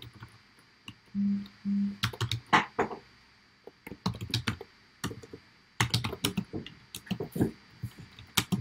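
Computer keyboard typing in irregular bursts of quick key clicks. There are also two short low hums a little after a second in.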